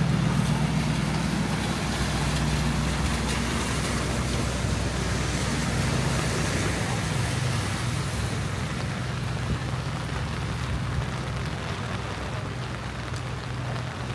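Street traffic in the rain: a vehicle's engine rumble that slowly fades, over a steady hiss of rain and wet road.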